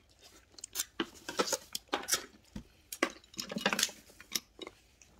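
Red snow crab shells being broken and picked apart at the table: irregular sharp cracks, clicks and scrapes of shell.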